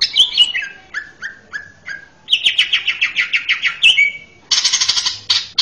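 Male cucak ijo (green leafbird) singing. It opens with a run of about six falling whistled notes, then a fast trill of repeated notes, and ends with a harsh, rapid chattering burst.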